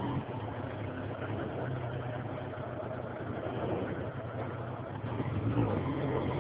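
Suzuki Bandit 1200S inline-four motorcycle engine running steadily at low revs, easing off slightly past the middle and picking up again near the end.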